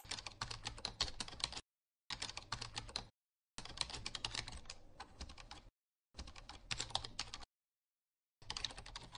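Computer keyboard typing: rapid keystroke clicks in five short runs with silent gaps between them, each run matching a caption being typed out on screen.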